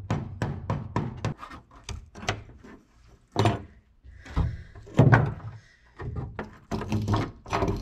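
A screwdriver hammered against the rusted lock ring of a fuel-tank sending unit to knock it loose: a quick run of metal knocks, then fewer, spaced-out ones.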